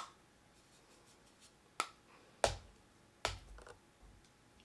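Three sharp clicking taps, about two seconds in, in the middle and near the end, as a makeup brush and small powder containers are handled.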